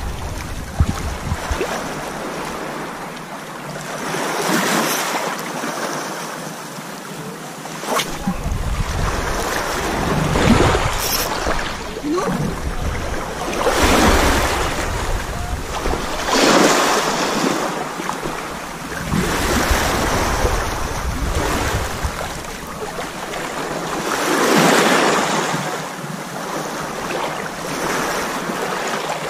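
Small sea waves washing in over a shallow, stony shore, the wash swelling and fading every few seconds. Wind buffets the microphone at times with a low rumble.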